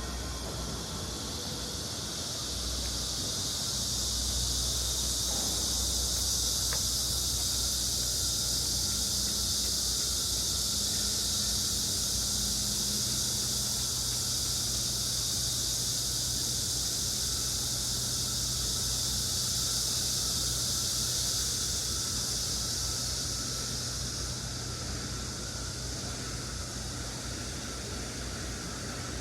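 Outdoor ambience beside an urban stream: a steady high-pitched hiss, louder through the middle, over a low steady hum of city traffic.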